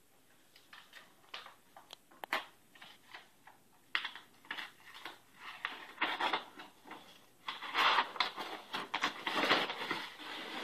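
Brown kraft wrapping paper torn and crumpled by hand as a package is unwrapped: short crinkling rustles, sparse at first, growing louder and nearly continuous over the last few seconds.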